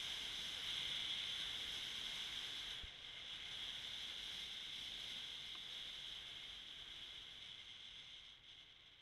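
Faint steady high-pitched hiss with no engine or speech in it, dropping slightly about three seconds in and then gradually fading out.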